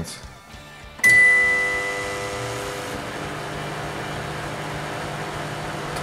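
A beep about a second in as the microwave oven starts, then it runs at full power (about 1.2 kilowatts), its big high-voltage transformer humming steadily, loudest at the start before settling.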